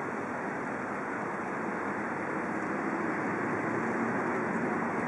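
Steady city traffic noise, with the engine hum of a bus passing in the second half.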